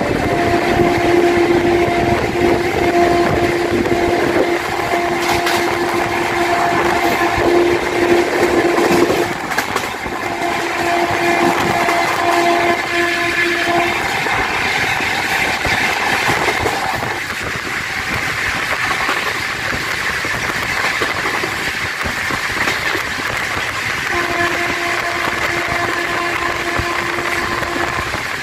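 Passenger train running at speed, heard from an open coach doorway: a steady rush of wheel and track noise. The WAP-7 electric locomotive's horn sounds in long held blasts through the first half, breaking off briefly about nine seconds in, and again in one blast near the end.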